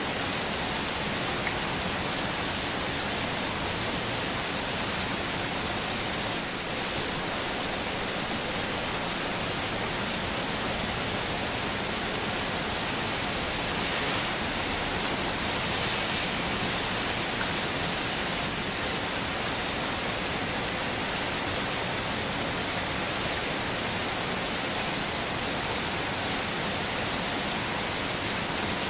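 Steady heavy rain, an even hiss with no thunder. The top end drops out briefly twice, about six and eighteen seconds in.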